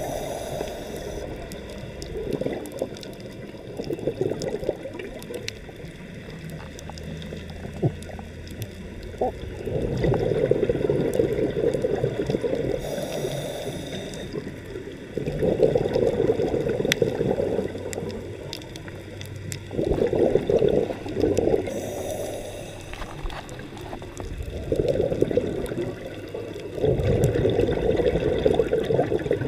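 Scuba regulator breathing underwater: exhaled bubbles gurgle out in bursts of two to three seconds, about every five seconds, with a short hiss of an inhale twice between them.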